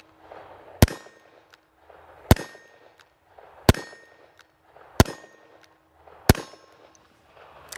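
A SAR 38 .357 Magnum revolver with a 6-inch barrel firing five full-power 125-grain rounds single action, one shot about every one and a half seconds. Each shot is a sharp crack followed by a brief ringing tail.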